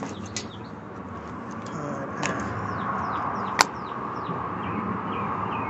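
Small birds chirping over and over in short, falling chirps, under steady outdoor background noise. A couple of sharp clicks come from an earbud being handled close to the phone's microphone, the loudest about three and a half seconds in.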